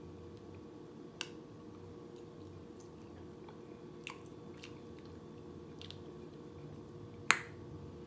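A metal fork clicking and scraping against a bowl a few times while eating, the loudest click near the end, over a steady low hum.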